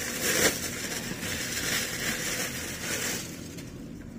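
Clear plastic packaging bag crinkling and rustling as it is opened by hand and a T-shirt is pulled out, for about three seconds, then dying down to faint handling.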